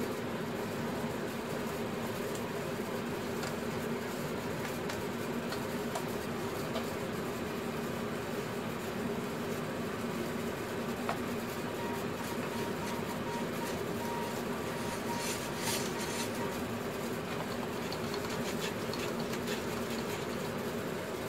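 Steady mechanical hum of room background noise, with a few faint clicks and taps scattered through it.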